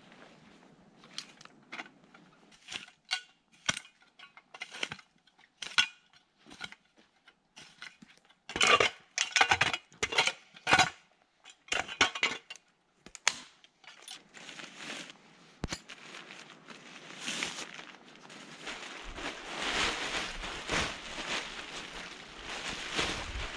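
Short crunches and sharp clicks and knocks as footsteps press into snow and gear is handled, with a dense cluster a little before the middle. From about two-thirds of the way in, a continuous rustling and crackling as a stiff camouflage tarp is unfolded and shaken out.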